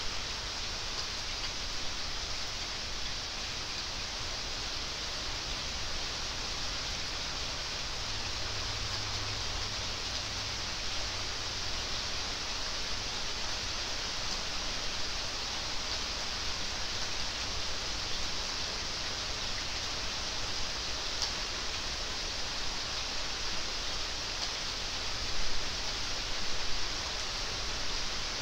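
Steady rain falling, an even hiss, with a few brief louder moments near the end.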